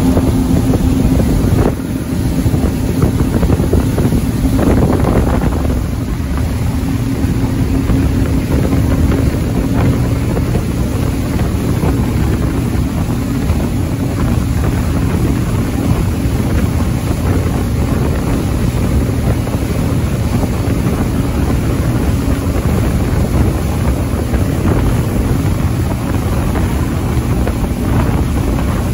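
Speedboat running at speed: a steady engine hum under the rush of its wake and wind buffeting the microphone.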